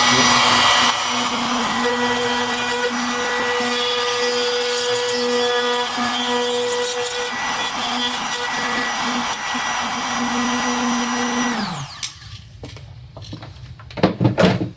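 Electric router running and cutting a hinge mortise into the edge of a wooden door, with a steady motor whine. It is switched off nearly twelve seconds in and spins down with a falling whine, followed by a few knocks near the end.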